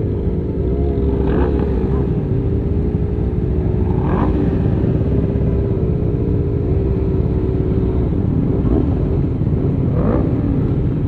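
Sport motorcycle engines with loud aftermarket exhausts idling and rolling slowly, a steady hum with three short throttle blips.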